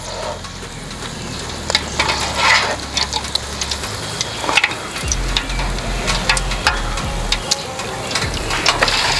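Egg foo young patty deep-frying in a pot of hot oil, the oil sizzling steadily. A metal spatula and a wire spider strainer clink and scrape against the aluminium pot again and again as the patty is turned over.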